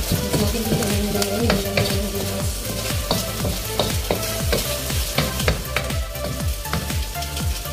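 Corned beef and eggplant sizzling in a wok as a wooden spoon stirs and scrapes through it, with frequent sharp clicks of the spoon against the pan.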